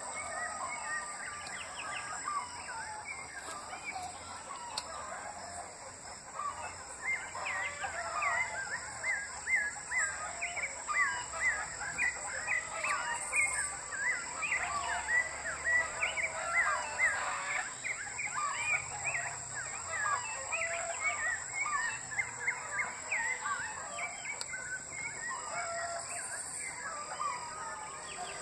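A dense chorus of many birds calling at once: short rising and falling calls overlapping, thickest through the middle, over a steady high-pitched buzz.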